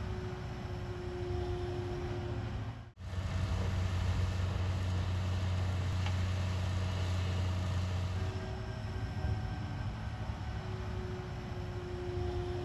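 Heavy construction machinery running steadily: a low engine rumble with a steady whine. The sound drops out for an instant about three seconds in, then comes back with a louder low rumble that eases about eight seconds in.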